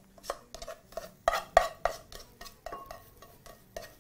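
Serving utensil knocking and scraping against a pan as steamed cabbage is scooped out into a ceramic bowl: a quick run of sharp clicks and scrapes, loudest about a second and a half in.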